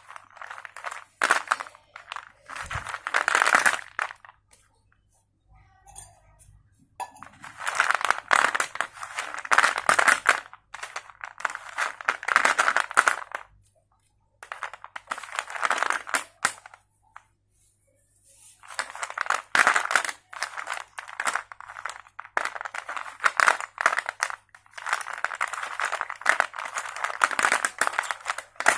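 Slate pencil being crunched close to the microphone: repeated bouts of dense, brittle crackling crunches, each lasting one to four seconds, with short pauses between them.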